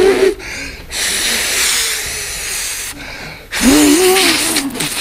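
A man's wordless vocal sounds: a held hum at the start, a breathy hiss for about two seconds, then a short hum that rises and falls about four seconds in.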